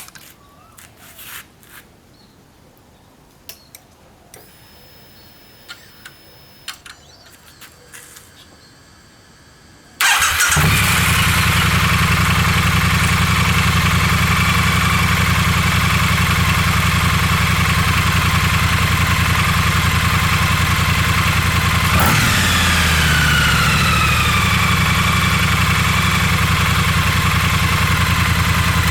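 Triumph T100 motorcycle's 900 cc parallel-twin engine starting about a third of the way in after a few faint clicks, then idling steadily through its exhaust, with a brief change in the engine note about two-thirds in.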